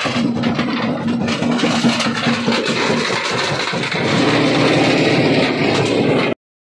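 Big stone crusher working under load: a steady machine hum with many sharp cracks and crunches of rock being broken. The sound cuts off abruptly near the end.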